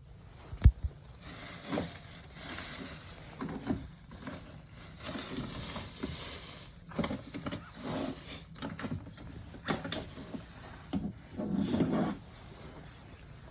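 Irregular handling noise: a sharp click under a second in, then a run of short scrapes, rustles and knocks.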